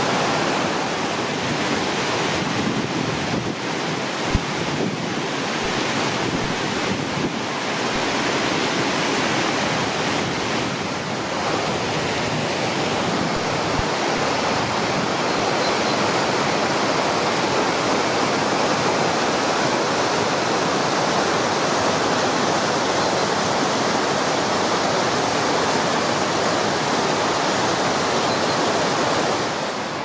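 Shallow moorland river rushing steadily over limestone rocks and small cascades.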